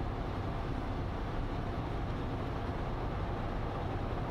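Steady rumble of a moving passenger train heard from inside the railcar.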